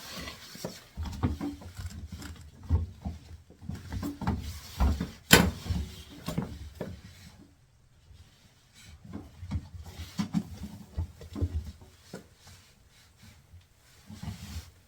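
Hands working a rubber door boot and its metal spring clamp onto a washing machine: irregular knocks, taps and rubbing, with one sharp click about five seconds in.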